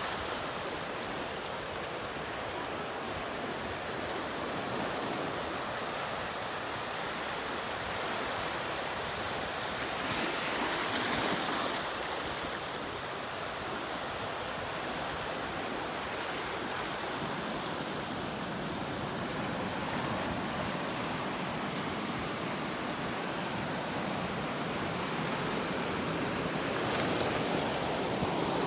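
Ocean surf washing in over lava rocks along the shore, a steady wash with a louder surge about ten seconds in and another near the end.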